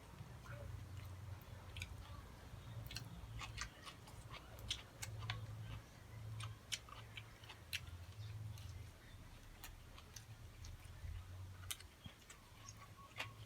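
A person chewing grilled frog close to the microphone, with many scattered sharp, wet clicks of the mouth and a low rumble that comes and goes.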